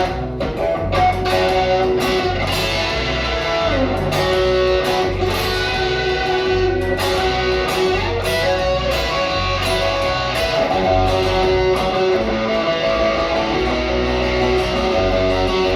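Live band playing an instrumental passage with no singing: electric guitar over a steady, repeating low bass pulse and regular percussive hits.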